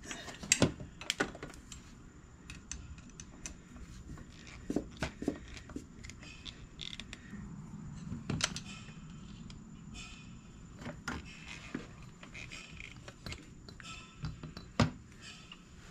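Scattered light clicks and knocks of metal carburetor parts being handled and fitted on a 1975 Honda GL1000 Gold Wing's rebuilt carburetor bank. The sharpest knocks come about half a second in, a little past the middle, and near the end.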